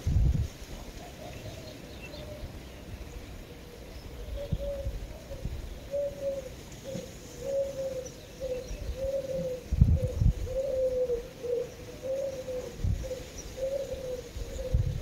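A bird calling outdoors: a long run of short, low notes repeating about one and a half times a second, clearest from about four seconds in. A few low thumps, the loudest about ten seconds in.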